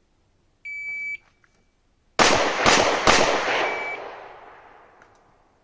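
Electronic shot-timer start beep, then a little over a second later three pistol shots about half a second apart, the last about 2.4 s after the beep, their echo dying away over the next two seconds. A second short beep at the same pitch sounds just after the shots.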